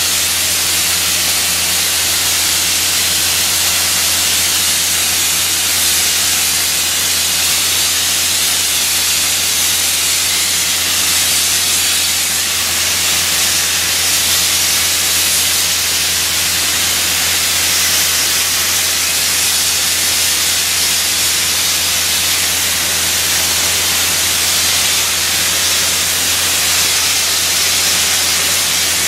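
High-pressure dry ice blasting nozzle hissing loudly and without a break as it strips old paint from a ceiling, over a steady low hum.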